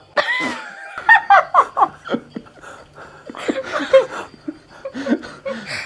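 People laughing: a high-pitched squeal-like laugh, then a quick run of short giggles, and more laughter around the middle.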